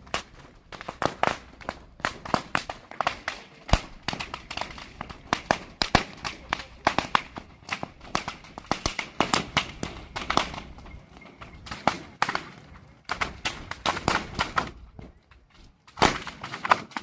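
Firecrackers going off in dense, irregular cracks and pops. They thin out near the end, with one last cluster.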